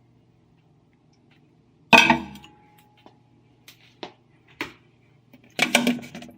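Dishware clinking as a bowl of water with a poached egg and its cover are handled: one sharp clink about two seconds in that rings briefly, two light taps, then a quick cluster of clatter near the end.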